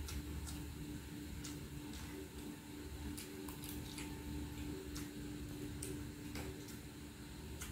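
Eating sounds: a metal spoon and fork clicking and scraping against a plate, with chewing, as irregular light clicks over a faint steady hum.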